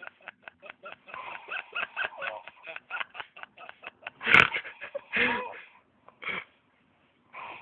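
A person snoring and snorting in sleep: a run of short quick snorts, then three louder snores about four, five and six seconds in.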